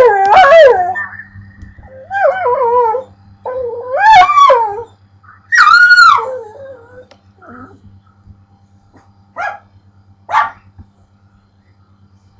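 Pit bull making howling, whining vocal noises: four drawn-out calls that waver up and down in pitch, then two short, sharp yips a few seconds later.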